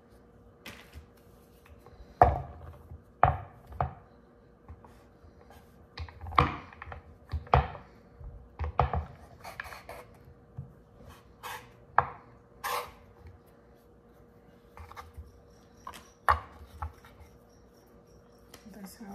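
A large kitchen knife cutting down through a stack of thin pastry sheets and knocking on a wooden cutting board, in irregular knocks, the sharpest about two seconds in.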